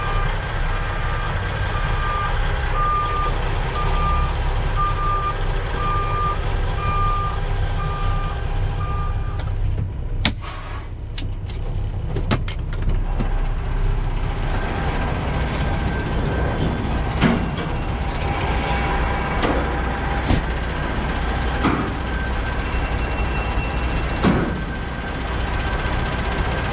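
Semi truck's backup alarm beeping about once a second over the diesel engine's running, stopping about ten seconds in. After that the engine keeps idling, with a few sharp clicks and knocks as the cab door is opened.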